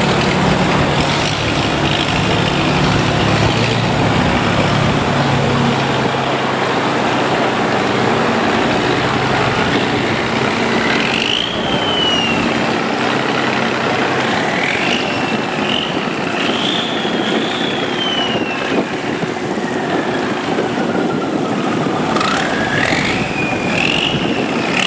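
Boat engines running loudly and steadily over the rush of water. About halfway in, a high whine starts to rise and fall in pitch again and again, like an engine being revved up and down.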